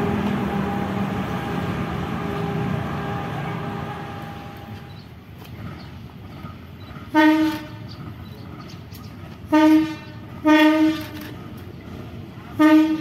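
Indonesian KRDI diesel railcar set running past with a steady engine rumble that fades away over the first few seconds. After a pause, a CC 201 diesel locomotive sounds four short blasts on its horn, the third a little longer than the others.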